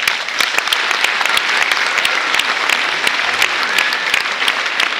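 Audience applauding: dense clapping that breaks out suddenly and keeps up steadily.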